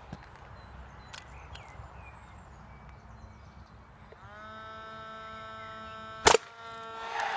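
A powered staple gun's motor spins up with a brief rising pitch and runs steadily for about two seconds, then fires with a single loud, sharp crack, driving a staple into a recycled-plastic fence post. A few faint clicks come before it.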